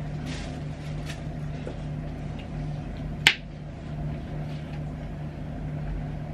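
A metal fork clicks sharply once against a plate about three seconds in, with a few fainter taps of cutlery and a steady low hum underneath.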